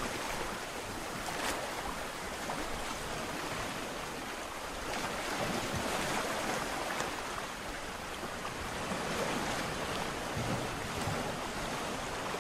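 Sea surf: waves breaking and washing in a steady rush, swelling a little twice as bigger waves come in.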